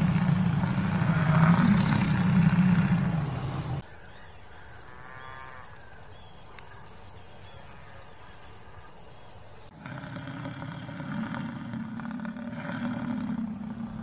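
Bison bellowing: a long, deep bellow for about the first four seconds, then, after a quieter stretch, more bellowing from about ten seconds in.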